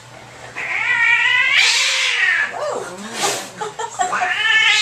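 Domestic cat caterwauling angrily while restrained by the scruff on an exam table. A long wavering yowl starts about half a second in and turns harsh, a short harsh burst follows around three seconds, and another yowl rises near the end.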